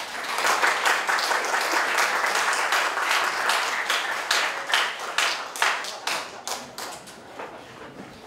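Audience applauding, dense for the first four seconds or so, then thinning to scattered claps.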